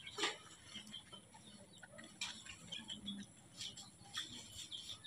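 Faint scattered clicks of a baby monkey sucking milk from a feeding bottle, with faint high chirps in between.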